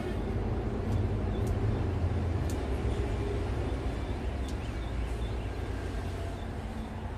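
A few sharp snips of grooming scissors cutting a poodle's curly coat, heard over a steady low rumble.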